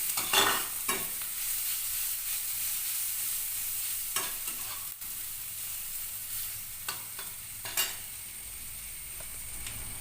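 Chopped onion and green chilli sizzling in hot oil in a pan, with a spatula stirring and scraping the pan in several short strokes.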